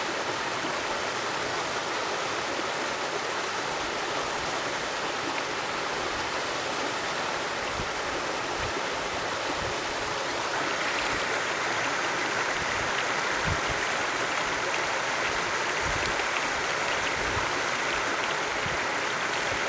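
Small waterfall pouring down a rock chute into a pool: a steady rush and splash of falling water, growing a little louder and brighter about halfway through.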